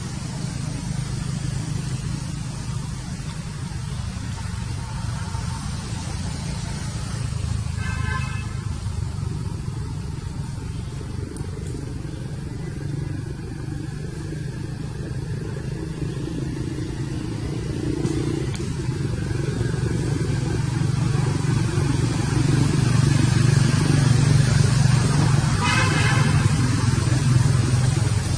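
Steady low engine-like drone, as of a motor vehicle running, growing louder in the second half. Two short high-pitched calls cut through it, about eight seconds in and again near the end.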